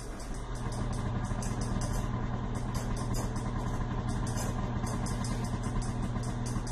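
KitchenAid stand mixer motor switched on about half a second in, then running with a steady hum as it drives the pasta roller attachment.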